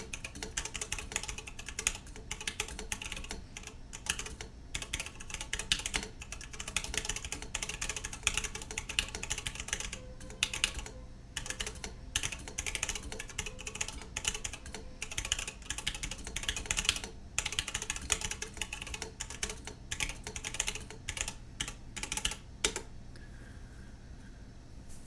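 Fast typing on a 60% mechanical keyboard with a stainless steel plate, brown switches and thick PBT keycaps: a dense stream of key clacks with a couple of short pauses, stopping a couple of seconds before the end.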